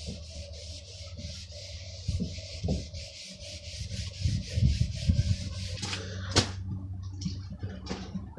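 Blacksmith's shop work sounds: a steady hiss over a low hum, with several dull knocks of tools and stock being handled. The hiss cuts off near the end, followed by one sharp knock.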